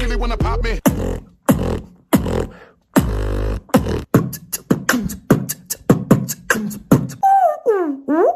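Beatboxing, one layer at a time: deep buzzing bass notes held for under a second each, then a run of quick mouth-made percussive hits about three to four a second. Near the end comes a hummed melody line that slides up and down in pitch.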